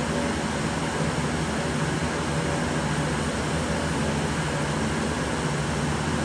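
Steady whir of many running cooling fans, with a constant low hum under it. The small screwdriver work on the graphics card is not heard above it.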